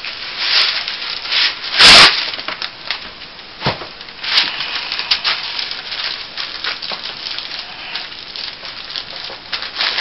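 A sheet of paper crinkling and rustling as it is laid over bubble-bar dough and pressed and smoothed flat by hand, with one loud burst of crackling about two seconds in.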